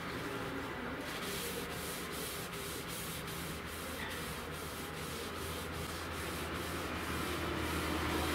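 Hand-worked rubbing strokes on wood, about three a second, starting about a second in: sanding or brushing of a wooden surface.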